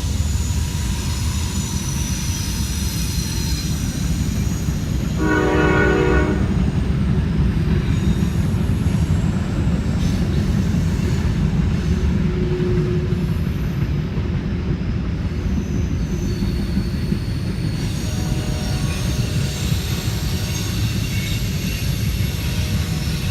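A train passing close by, with a steady heavy rumble of the cars rolling on the track. There is a single horn blast of about a second roughly five seconds in, and high-pitched wheel squeal near the start and again near the end.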